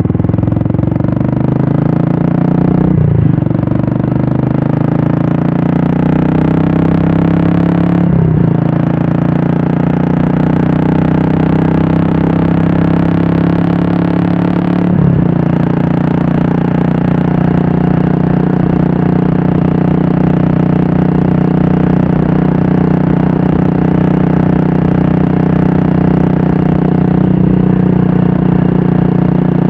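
Royal Enfield Classic 350's single-cylinder engine running through a Red Rooster aftermarket exhaust at a steady, loud note. Its pitch dips briefly and recovers three times in the first half, then holds steady.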